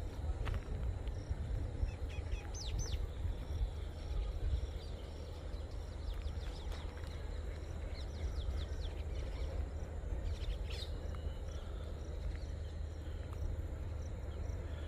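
Small birds chirping in short, high, scattered bursts over a steady low rumble of outdoor background noise.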